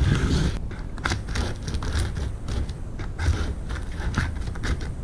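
Utility knife slicing through packing tape and cardboard along a box seam: a run of short, irregular scraping and crackling cuts.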